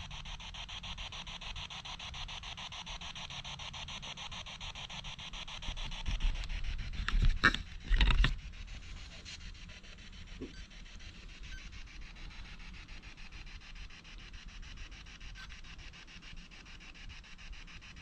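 SP7 spirit box scanning through radio channels: a steady hiss of static, chopped rapidly as it sweeps. A few louder crackling bursts come about seven and eight seconds in.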